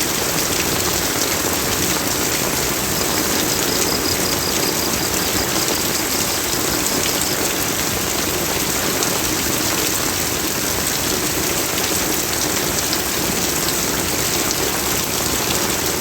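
Steady rain falling, a dense even hiss with the patter of drops hitting a surface.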